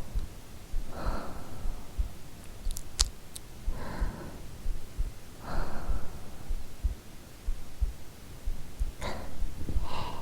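A woman's real heartbeat recorded close up, a steady run of low, soft thumps, with slow soft breaths every couple of seconds. There is a brief sharp click about three seconds in.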